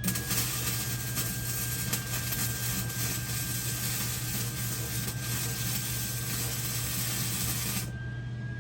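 Welding arc running for about eight seconds, a steady hiss with crackles, cutting off suddenly near the end.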